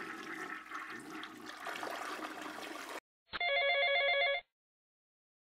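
Rushing noise for about three seconds, then a telephone ringtone rings once for about a second before the next call connects.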